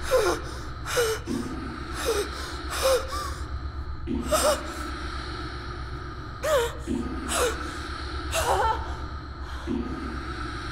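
A woman gasping and crying out in short, strained breaths, each with a brief voiced glide in pitch, about once a second with a few longer gaps. Under them runs a low drone that swells in a slow pulse every few seconds.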